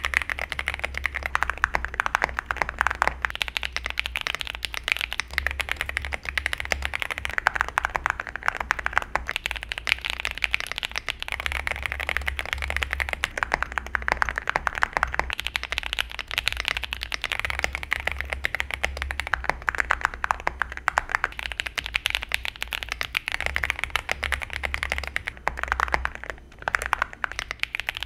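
Fast, continuous typing on a plastic-cased TKL mechanical keyboard with a polycarbonate plate (Epomaker Shadow S), as a sound test of three switch and keycap setups. The stock Mulan linear switches with stock keycaps give the middle sound, lubed Gateron Milky Pro Yellow switches with Cerakey ceramic keycaps the thockiest, and tactile Mode Tomorrow switches and keycaps the clackiest. The setup changes with brief pauses in the typing.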